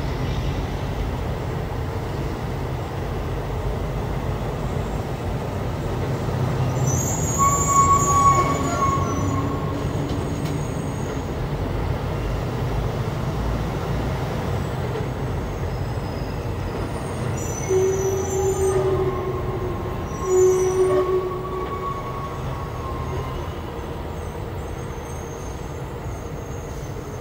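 Steady low drone of a diesel truck heard from inside its cab in slow stop-and-go traffic, with short high squeals of brakes, about eight seconds in and again around eighteen to twenty-one seconds in.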